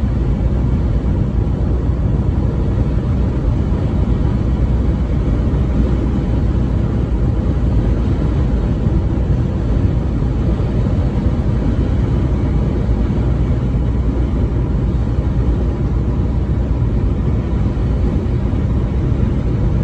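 Steady, unchanging low rumble of a moving vehicle, road and engine noise with no horn sounding.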